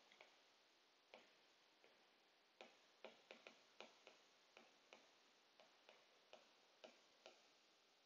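Faint, irregular clicks of a stylus tip tapping on a tablet's glass screen while writing by hand, about two a second, over near silence.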